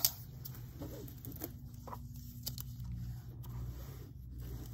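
Handling noise of a metal rope chain and a tape measure being moved about on a cloth surface: a sharp click at the very start, then scattered light clicks and rustles over a steady low hum.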